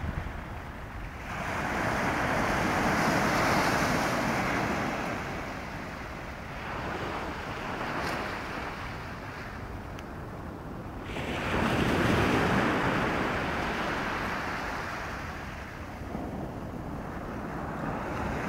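Sea waves breaking and washing on a shore, the noise swelling and fading in two loud surges with quieter wash between, with wind on the microphone.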